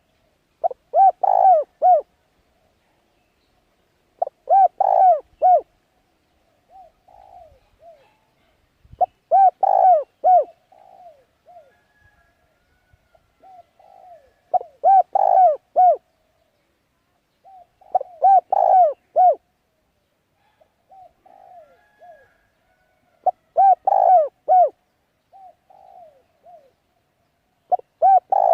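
A bird of the pigeon family cooing: loud phrases of several quick coos, each about a second long, repeated about every four to five seconds, with fainter cooing between them.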